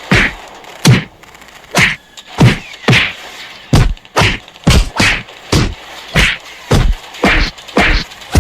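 A steady run of heavy hit sound effects, thwacks with a deep thud under each, coming a little under two a second.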